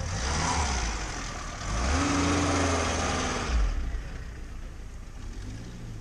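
A car engine running at idle, revving up and settling back down about two seconds in.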